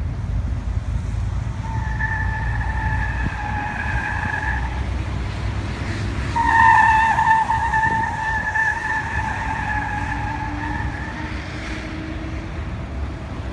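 Wheel whistle on a Nissan X-Trail T32 while driving: a high, steady whistle from the wheels over low road rumble. It comes in twice, the second time louder and longer.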